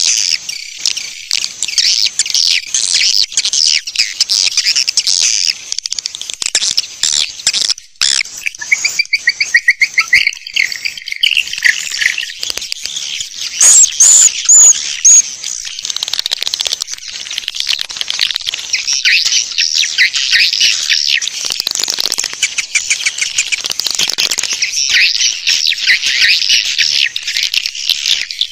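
Dense, continuous twittering of many swiftlets: a swiftlet lure call recording, played to draw swiftlets to nest in a swiftlet house. A few sharper, higher chirps stand out about halfway through.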